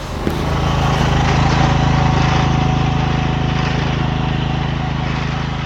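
John Deere Hydro 185 riding mower's engine running steadily.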